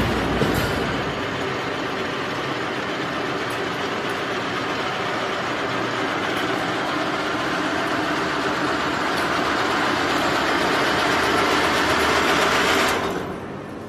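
Multi-spindle wire-winding machine of a gabion (hexagonal wire mesh) production line running with a steady mechanical whirr that grows slightly louder, then drops away sharply near the end.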